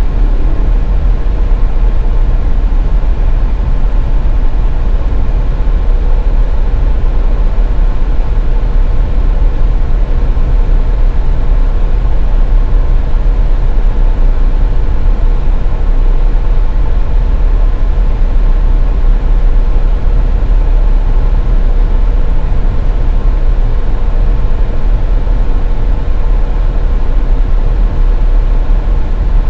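Steady low rumble of a car driving on a highway, with a faint steady whine.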